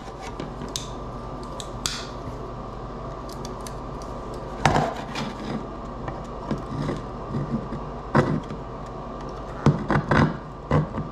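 Metal scraper blade prying and scraping at a solar panel siliconed into a plastic solar post light cap, with scattered clicks and knocks as the blade works the seal; the sharpest knock comes a bit after four seconds in, and several more come near the end.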